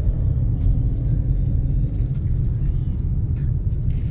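Steady low rumble of a moving car's engine and tyres on the road, heard inside the car's cabin.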